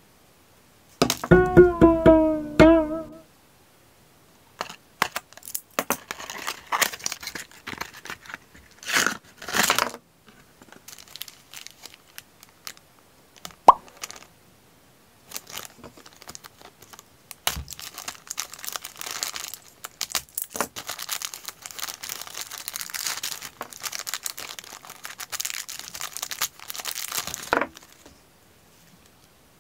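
A short pitched, wavering musical sound effect about a second in, then a thin clear plastic bag crinkling and crackling as it is handled, with louder crackles around nine seconds and steady crinkling through most of the rest.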